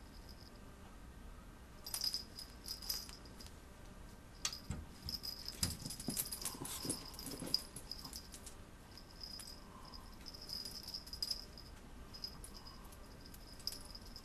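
A small bell on a kitten's collar jingling in short bursts as it plays, with scuffs and scratches of its paws on the fabric of a pet bed. The rustling is busiest a little before the middle.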